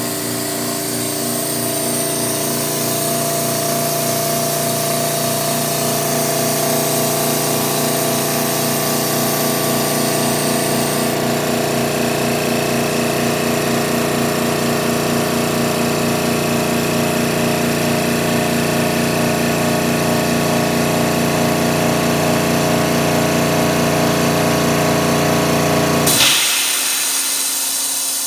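Air Techniques M5B portable dental air compressor running steadily as it pumps its tank up toward 80 psi. About two seconds before the end the motor cuts out at the pressure switch with a short burst of hiss. What remains is the cooling fan and the softer hiss of air bleeding back through the air dryer to regenerate its media.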